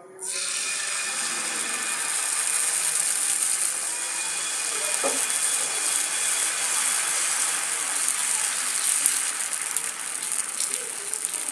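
Millet dosa batter sizzling on a hot dosa griddle (tawa) as it is poured and spread. The hiss starts suddenly and then holds steady.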